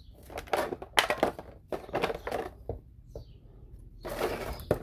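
Thin plastic bag crinkling and rustling in several irregular bursts as a figurine and its base are pulled out of it.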